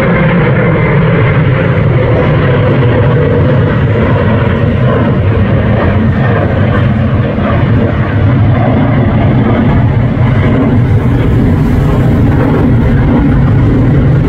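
Twin jet engines of a climbing KLM Boeing 737 after take-off: loud, steady engine noise with a heavy low rumble.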